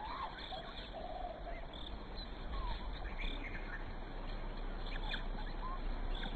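Outdoor ambience: a steady background hiss with scattered faint, short chirping calls throughout.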